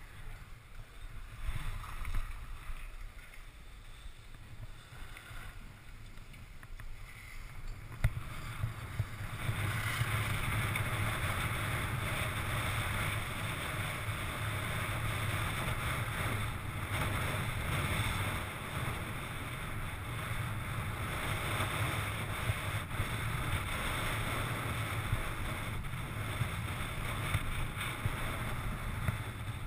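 Fischer RC4 skis hissing and scraping over packed snow while carving, with wind buffeting the camera microphone; the noise grows louder about eight seconds in and then stays steady.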